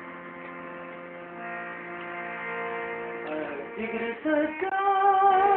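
Musical drone of long held notes that steps to new notes a couple of times, then a voice starts singing a held, wavering line of the recitation about four seconds in.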